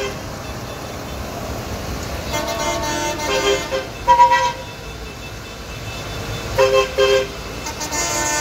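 Horns on passing tractors tooting several times over the low rumble of their diesel engines. Some of the toots are two-tone. A short, higher-pitched blast about four seconds in is the loudest.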